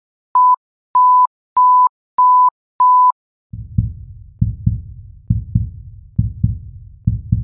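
A series of five short, evenly spaced electronic beeps at one steady pitch, followed about three and a half seconds in by intro music with a deep, bass-heavy thumping beat.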